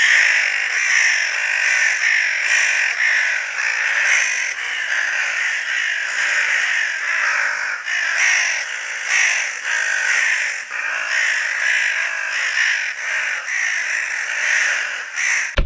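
Crows cawing, many harsh calls overlapping with no break, as from a flock. The sound starts and stops abruptly.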